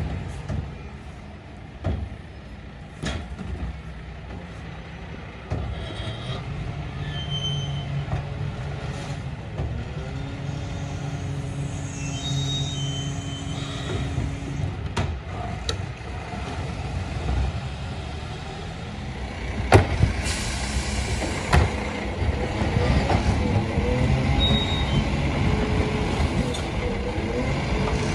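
Bucher rear-loader garbage truck running at the kerb while wheelie bins are handled and its hydraulic lifter tips a bin, with scattered clunks and bangs. The loudest bang comes about 20 s in, and the truck gets louder in the last third.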